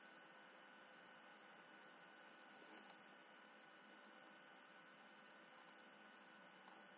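Near silence: a faint, steady electrical hum and hiss.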